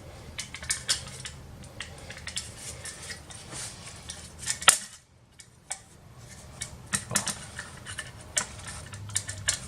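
Screwdriver, small screws and a metal SSD bracket being handled during a fiddly screwing-in. Irregular small metallic clicks and clinks, the loudest a sharp click about halfway through.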